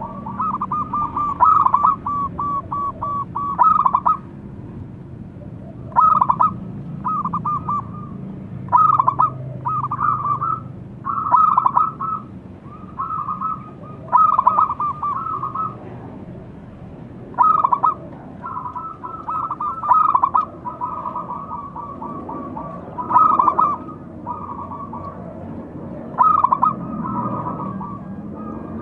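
Zebra dove (perkutut) cooing: short phrases of quick, stuttering coo notes, repeated every second or two.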